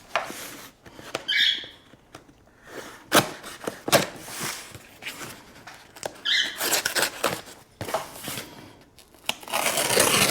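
A shipping package being opened and handled: scattered knocks and rustling, two short squeaks, and a longer stretch of rustling near the end.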